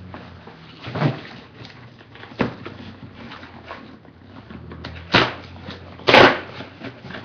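A cardboard shipping box being handled and its flaps pulled open: a few separate scrapes and knocks, the loudest about six seconds in.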